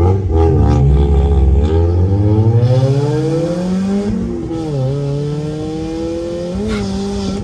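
Mazda Miata's four-cylinder engine accelerating, heard from inside the cabin: the revs climb steadily, then drop briefly at gear changes about four seconds in and again near the end.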